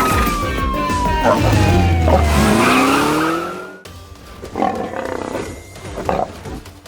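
Cartoon police-car arrival effects: a siren tone gliding down in pitch over a low vehicle rumble, with a short rising growl near the end. All of it cuts off suddenly a little before halfway, leaving quieter background music.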